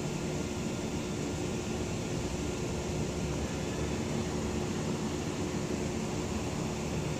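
Steady outdoor station-platform background noise, a constant low rumble with a faint unbroken hum running through it.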